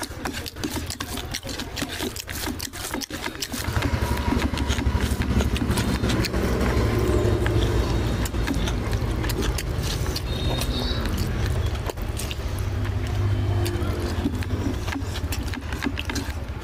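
Close-up wet smacking and squelching of rice and oily curry being mixed by hand and chewed, many short clicks. A steady low rumble joins about four seconds in.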